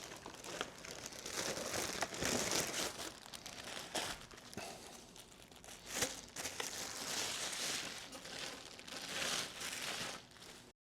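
Packaging being opened and handled: plastic wrapping crinkling and tearing in uneven bursts, with a few sharp clicks.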